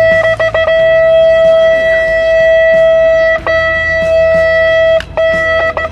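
Background music: one loud held note with overtones, stuttering a few times at the start and breaking off briefly twice.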